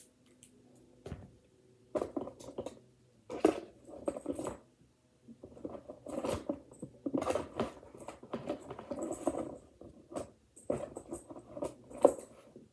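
Hands rummaging in a cardboard box of small plastic fidget toys: irregular rustling with light clicks and knocks.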